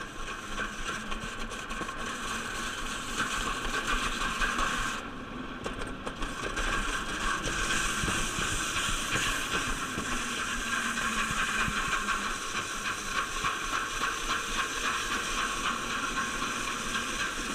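Summer toboggan sled running fast down a stainless steel chute: a steady hiss and rumble of the sled on the metal, dipping briefly about five seconds in.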